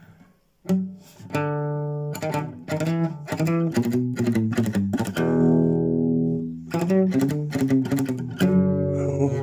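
Classical guitar with a homemade compensated bridge saddle, picked with a plectrum: a run of single notes and chords that ring on. It breaks off briefly about half a second in, then carries on.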